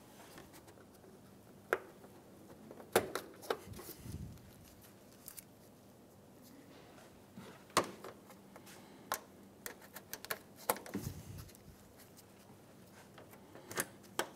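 Plastic push-type trim clips being pressed into a plastic engine-bay trim cover by hand: irregular sharp clicks and snaps, with softer handling of the plastic between them.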